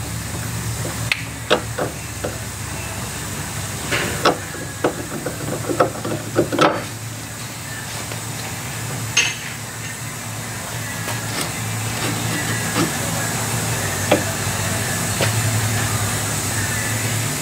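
Scattered metallic knocks and clinks of tools and suspension parts being handled during strut removal, bunched together about four to seven seconds in, over a steady low hum that grows slightly louder toward the end.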